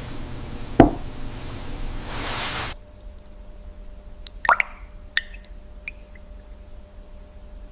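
Liquid dripping and plopping. A rushing hiss with one loud plop about a second in cuts off suddenly, then scattered single drips follow.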